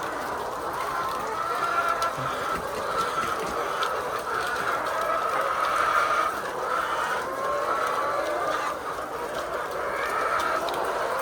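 A flock of many hens clucking and calling together, their calls overlapping into a steady chorus.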